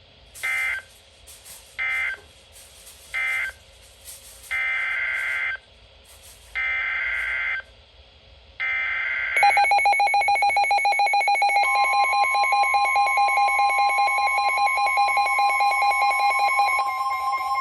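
NOAA Weather Radio SAME data bursts: three brief bursts of digital data tone marking the end of the severe thunderstorm warning, then three longer bursts carrying the header of the next alert, a tornado warning. About nine seconds in, a rapidly pulsing electronic alarm starts, and a couple of seconds later it is joined by the steady weather radio warning alarm tone that comes before the spoken alert.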